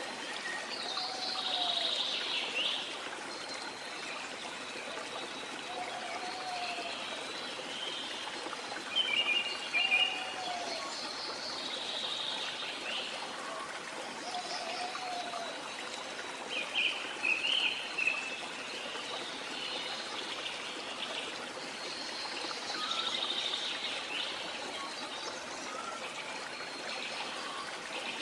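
Small indoor decorative waterfall trickling and splashing steadily, with birds chirping in short repeated phrases over it at intervals.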